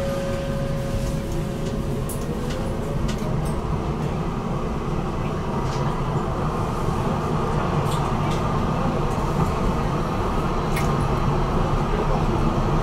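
BN GTL8 tram running along the track: a steady low running noise of wheels and drive with occasional light clicks. A thin whine fades out with a slight upward glide about two seconds in.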